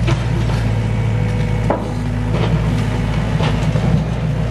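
SANY compact excavator's diesel engine running steadily, with several sharp wooden knocks from timber debris being handled in the rubble.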